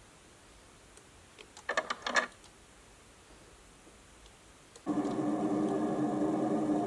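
Sound effects played by a model Deltic locomotive's DCC sound decoder through its small onboard speaker: a few short clicks about two seconds in, then a steady mechanical hum with several pitches that cuts in suddenly near the end.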